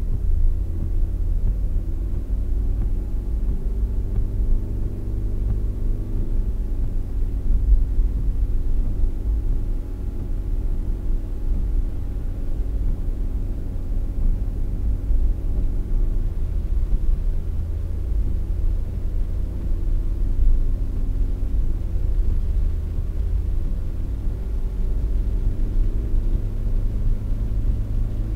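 Car driving, heard from inside the cabin: a steady low road rumble under an engine hum whose pitch shifts up and down several times as the car speeds up.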